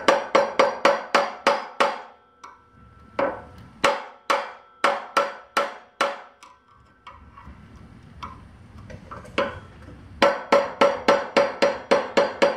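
Hammer striking a flat-blade screwdriver wedged under the timing key on a mini bike engine's crankshaft, driving the old key out of its slot. The metal strikes ring and come in quick runs of about four or five a second, with a pause of a few seconds in the middle.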